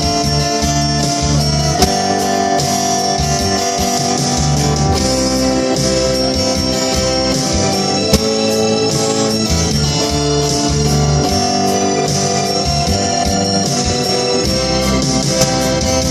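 Instrumental break in a song: a guitar melody over a backing band with a steady bass and beat, no voice.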